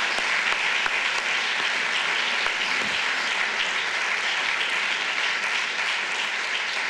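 A large audience applauding steadily, fading a little toward the end.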